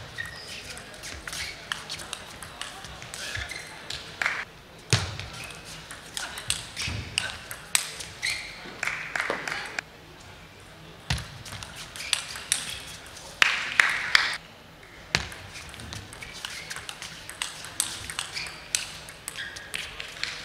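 Table tennis rallies: a ball clicking sharply off the bats and table in quick runs of hits, with short pauses between points.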